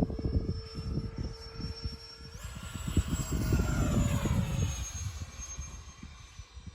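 Whine of a model FMS A-10 jet's twin electric ducted fans in flight. The pitch steps up about two and a half seconds in, then slowly falls away as the jet passes. Wind buffets the microphone throughout.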